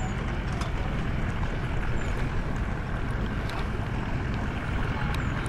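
Wind rumbling steadily on the microphone over an even outdoor hiss, with a few faint high chirps.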